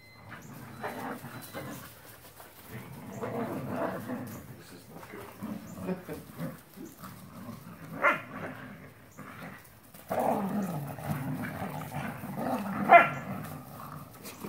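Dogs play-growling while tugging at a toy together, with a sharp bark about eight seconds in and a louder one near the end.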